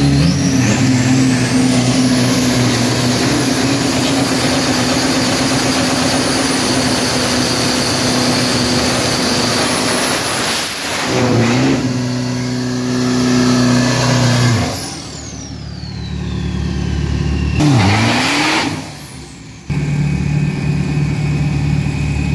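Turbocharged pickup-truck engine held at high revs during a burnout, tyres spinning, for about ten seconds. After a brief dip it is held high again, then the revs drop away. A short rev blip follows, then a steady lower engine note near the end.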